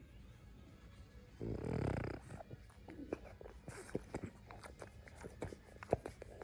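Boston terrier giving a short, low, pulsing grumble about a second and a half in, then a scatter of small clicks and taps.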